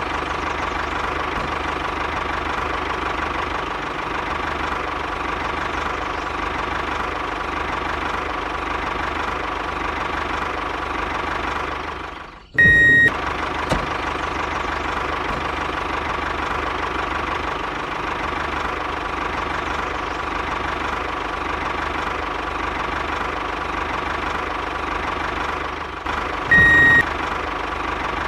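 Small electric motor of a DIY miniature toy tractor running steadily with a whine. A short, louder high beep sounds about halfway through and again near the end.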